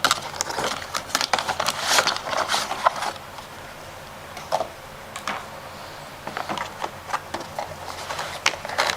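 Rustling and clicking as a power adapter cable and its packaging are handled: busy for the first three seconds, then a few scattered clicks, picking up again near the end.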